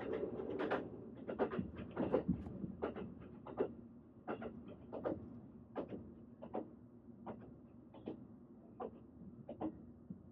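Train running, its wheels knocking over rail joints in a loose, irregular rhythm of roughly one or two clacks a second, over a low running rumble that fades during the first few seconds.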